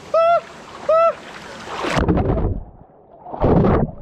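A man's voice gives two short yelps in the cold river water. Then water splashes and sloshes close against the microphone in three loud bursts.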